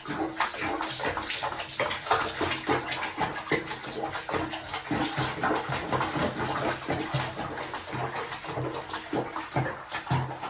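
Water sloshing and splashing in a sink basin as a cat moves about in it, with many small irregular splashes.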